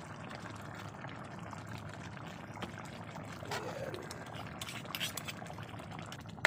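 Beef caldereta sauce simmering in an aluminium pan while a metal spoon stirs through it, with a few light clicks and scrapes of the spoon against the pan past the middle.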